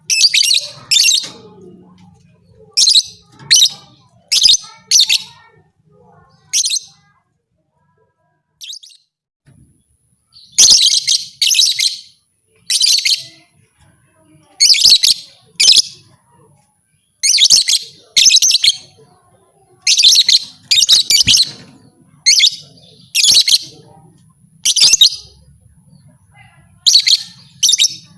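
Lovebird chirping: short, shrill, high-pitched chirps, often in quick pairs, with a quiet spell of a few seconds about a third of the way through.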